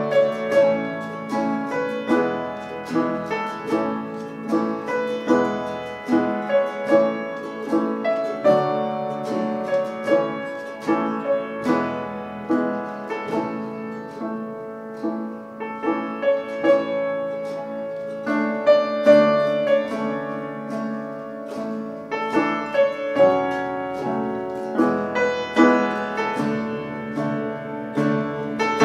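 Instrumental worship music from a small band, with no singing. A keyboard played with a piano sound leads, backed by acoustic guitar and electric bass.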